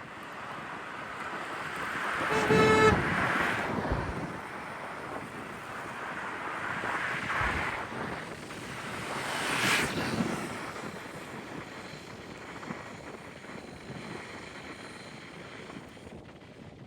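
Wind rushing over the microphone, swelling twice, with a short horn-like toot about two and a half seconds in.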